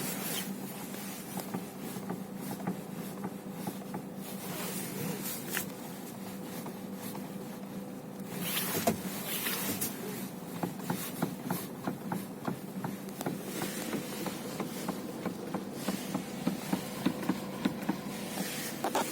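Renault Megane 3 steering knocking as the wheel is turned on the spot: a series of short knocks, coming more often and louder in the second half, over a steady hum. The knock is typical of wear in the steering rack.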